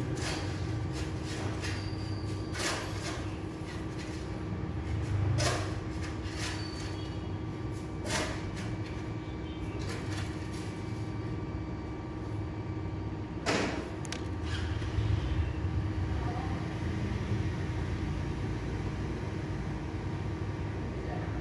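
Handling noise from fingers working braided fishing line through a hook: scattered soft clicks and rubs, with a sharper click about thirteen and a half seconds in, over a steady low background rumble and hum.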